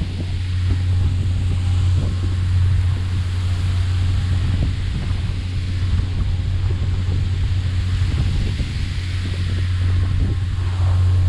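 Boat under way: a steady low engine drone, with wind buffeting the microphone and water rushing and splashing along the hull.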